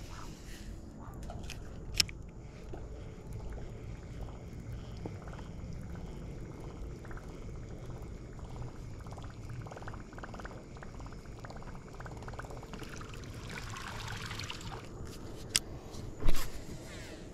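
Water lapping and trickling around a kayak hull during a lure retrieve, with a sharp click about two seconds in. Near the end comes a loud sharp knock as the rod is jerked back to set the hook on a striking bass.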